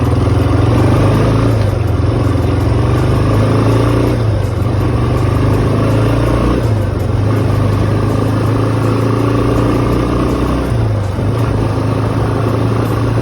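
A Yamaha YFM 350 Warrior ATV's single-cylinder four-stroke engine running, its revs rising and falling several times.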